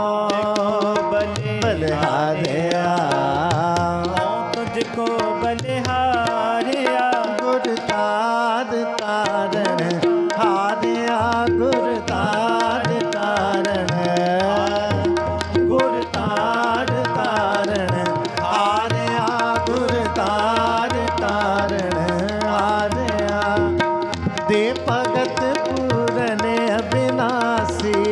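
Sikh kirtan music: hand-pumped harmoniums play the shabad melody over a steady tabla rhythm, with deep bass-drum strokes.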